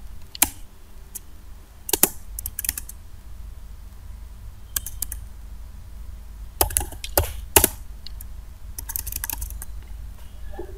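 Computer keyboard keys clicking in short, irregular clusters as text is deleted in a code editor, over a steady low hum.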